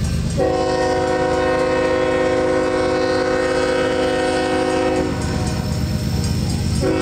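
Diesel freight locomotive's air horn sounding several notes at once: one long blast of about five seconds, then a second blast beginning near the end, over the low rumble of the approaching train.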